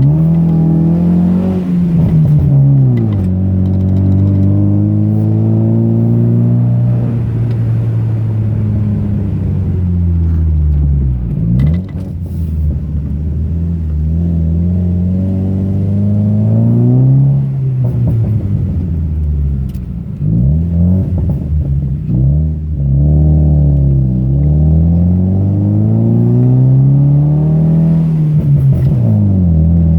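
Car engine pulling and easing off in turn, its pitch climbing and then dropping back every few seconds.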